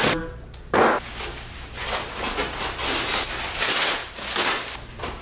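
Plastic packing wrap rustling and crinkling as parts are pulled out of a large cardboard box, in uneven surges with a sharp louder rustle just under a second in.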